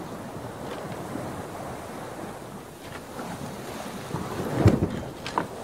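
Fingertips rubbing and blending soft pastel on pastel paper, close to the microphone: an uneven rushing scrape. About four and a half seconds in there is a dull thump, followed by a couple of light taps.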